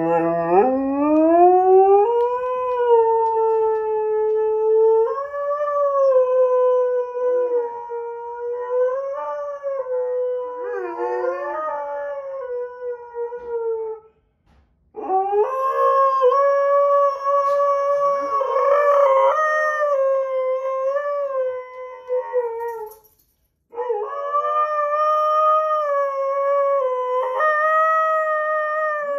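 Husky-malamute mix howling in displeasure: three long, wavering howls with short breaks for breath, the first sliding up in pitch at the start.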